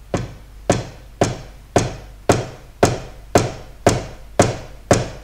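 Soft, dull taps on a bar pad of a Pearl Malletstation EM1 electronic mallet controller, evenly spaced at about two a second, about ten in all. These are the soft strikes used to calibrate the bar's sensitivity.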